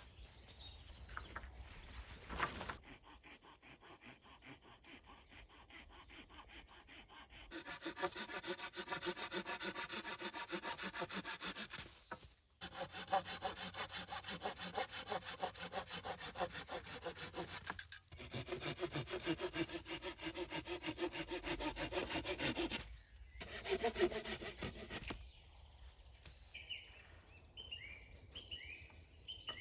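Hand saw cutting through wood in quick, even back-and-forth strokes, in several stretches with short breaks between. Birds chirp near the end.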